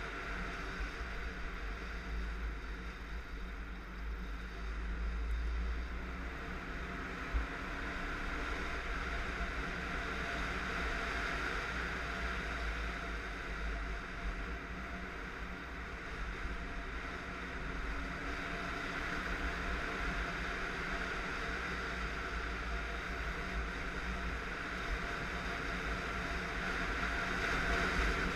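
Kawasaki KLR650 single-cylinder engine running steadily while riding along a dirt road, mixed with wind rush over the camera microphone and tyre noise on gravel. One sharp knock about seven seconds in.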